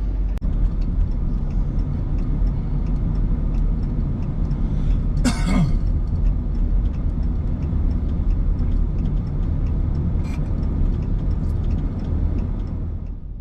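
A vehicle's engine runs with a steady low rumble, heard from inside while riding. A brief, louder sound cuts in about five seconds in.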